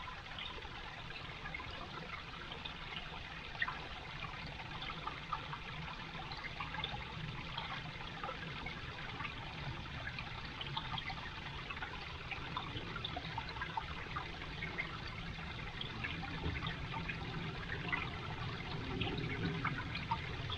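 Small woodland stream trickling over rocks and moss in a steady flow, with many tiny splashes and gurgles.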